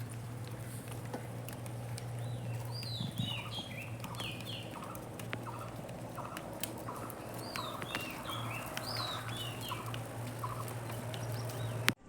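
Birds calling: repeated short, falling chirps in clusters, with a row of quicker mid-pitched notes in the middle, over a steady low hum.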